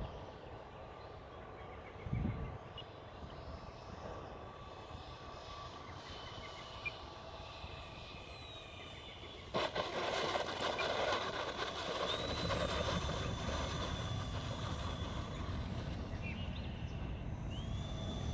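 Electric motors of a radio-controlled Avios C-130 Hercules model airplane whining in flight, the high pitch rising sharply twice in the second half. About halfway through, the sound suddenly grows louder and fuller.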